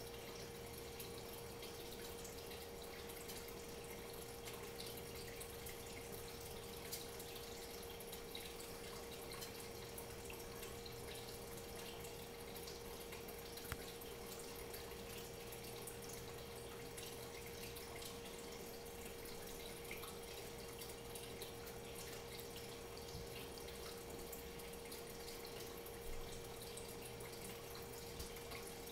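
Low steady background hiss with a constant mid-pitched hum and faint, scattered ticks; no distinct event stands out.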